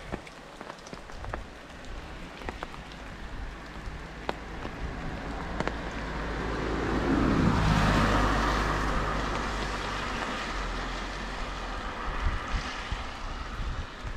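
A car passes on a wet road: its engine and tyre hiss swell to a peak about halfway through and fade away over several seconds. Steady rain goes on underneath, with scattered sharp drop ticks close by.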